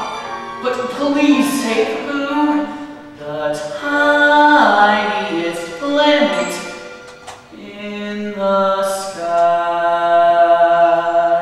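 A musical theatre cast sings together in chorus, with sustained notes and a long held chord through the last third.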